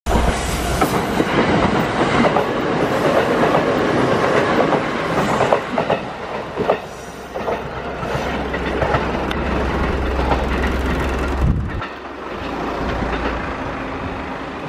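Kintetsu electric train running past, wheels clicking over the rail joints, with a steady low hum under the noise. It is loudest for the first six seconds or so, and the low hum drops away near the end.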